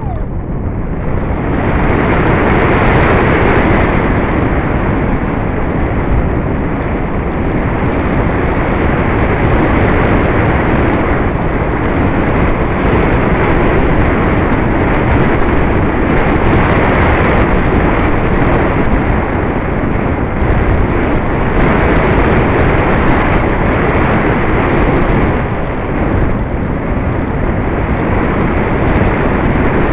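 Steady rush of airflow over the onboard FPV camera's microphone on a Skysurfer RC foam plane in flight, a rough even noise with a faint constant high whine above it.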